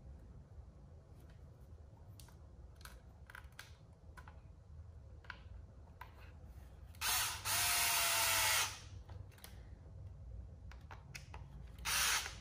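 Power hex driver running in short bursts, driving small screws into the plastic to hold down the light-kit control module: a run of about a second and a half with a brief break about seven seconds in, and a shorter run near the end. Faint clicks of small parts being handled in between.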